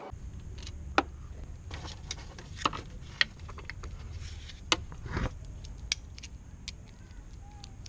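Metal hand tools clinking: a socket and extension being handled and fitted together, giving a few irregular sharp clicks over a steady low rumble.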